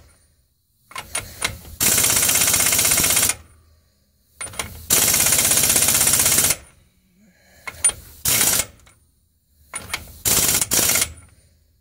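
Air impact wrench hammering on the front pinion nut of a 2007 Nissan Titan's differential, in two longer runs of about a second and a half and several short blips. The nut is being brought up a little at a time until the marks on the nut and tail shaft line up, setting the pinion's position.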